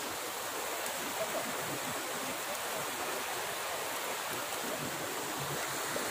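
Steady rushing of a flowing stream, an even hiss of running water.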